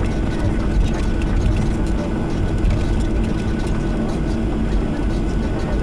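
Cabin noise of a Boeing 737-800 taxiing after landing. Its CFM56-7B engines run at idle as a steady drone, with a low rumble and a faint steady high whine.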